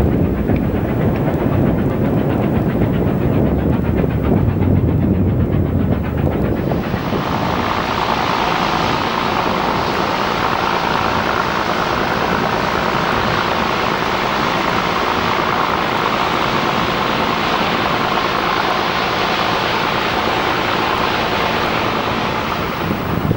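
Low rumble of a passenger train's coaches running along the line. About seven seconds in it changes abruptly to the steady rushing churn of a car ferry's tug pushing off from a slipway, its engine running and its propeller wash foaming.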